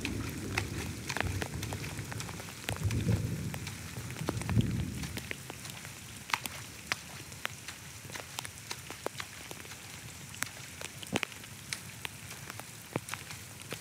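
Water splashing and sloshing in uneven surges for about the first five seconds, then only scattered drips and crackling taps over a faint hiss.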